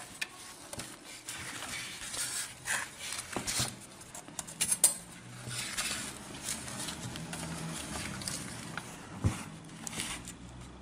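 Handling noise from a power supply's sheet-metal case being moved and turned over by hand: scattered light knocks, clicks and rubbing.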